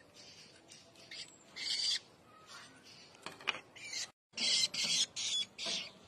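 Woodchat shrike fledglings giving harsh, raspy begging calls while being fed mealworms with tweezers. There is one call near two seconds in and a few weaker ones, then four loud calls in quick succession near the end.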